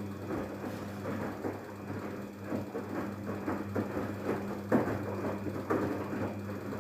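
Daewoo DWD-FT1013 washing machine running its softener rinse and drain: a steady low electric hum under dense, irregular sloshing and splashing of water.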